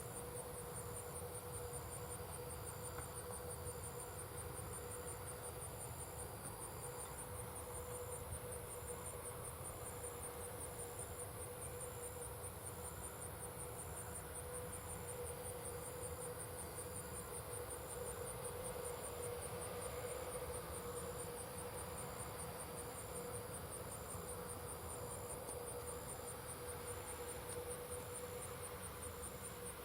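Insects chirping in a steady stream of rapid, very high, evenly spaced pulses, over a constant low hum and rumble.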